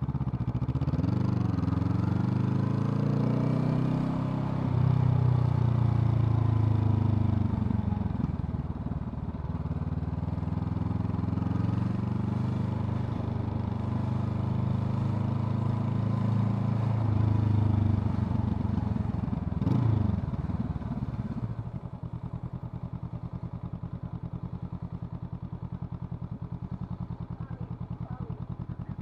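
Honda CL500's 471 cc parallel-twin engine under way, its pitch climbing and dropping with the throttle and gear changes. About 20 seconds in it revs briefly, then settles to a steady, quieter idle.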